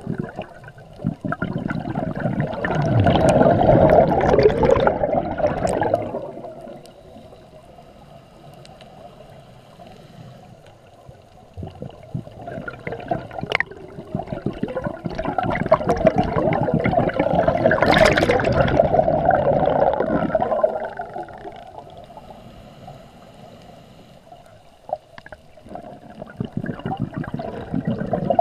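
A scuba diver's exhaled breath bubbling out of the regulator underwater. It comes in long gurgling stretches, one about a second in and another from about twelve seconds, with quieter water murmur between. A third begins near the end.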